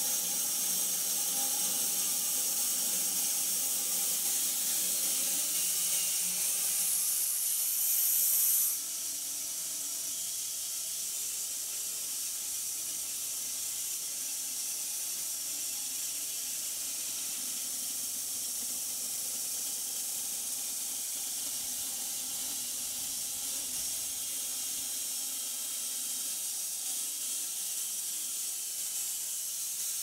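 Homemade wide-cut bandsaw mill sawing a red oak crotch log, a steady hiss of the blade cutting through the wood. It drops abruptly to a slightly quieter level about nine seconds in.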